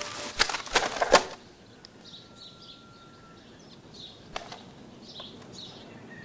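A few sharp clatters in the first second and a half, then quiet with faint birds chirping and one more knock a little past the middle.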